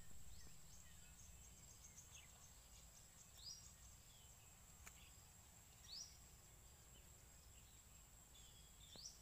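Faint garden ambience: a steady high insect whine, with a bird giving short rising chirps every two to three seconds.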